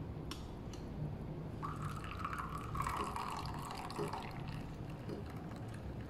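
Steamed milk poured from a stainless steel frothing pitcher into a ceramic cup of espresso, a spoon holding back the foam. The pour rings at a steady pitch for a couple of seconds in the middle, with a light click near the start.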